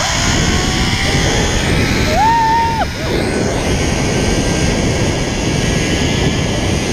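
Zip-wire ride: wind rushing hard over the microphone while the trolley runs along the steel cable, with a faint whine that rises slowly in pitch as it gathers speed. A rider gives one short whoop about two seconds in.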